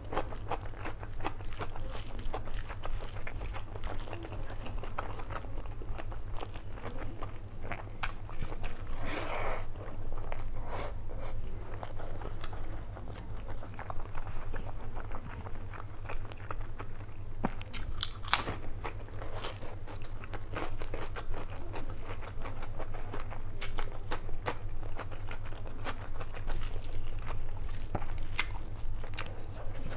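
Close-miked chewing and biting of a mouthful of mutton biryani eaten by hand, with many short wet mouth clicks and some crunchy bites, a loud cluster of them about eighteen seconds in. A steady low hum runs underneath.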